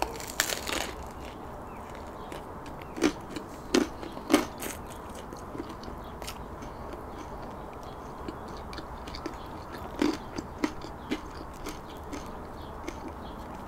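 Biting into a baguette sandwich with a short crunch just after the start, then chewing, with scattered short crunches and clicks.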